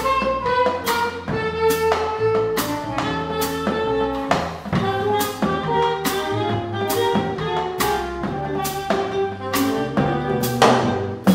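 Small jazz combo playing: woodwind melody over electric keyboard, walking upright bass and a drum kit, with a steady cymbal beat about twice a second.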